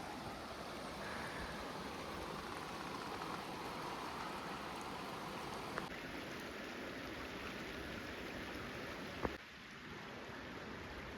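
Steady rushing of a river flowing over rocks, with two sharp clicks, one about six seconds in and a louder one about nine seconds in.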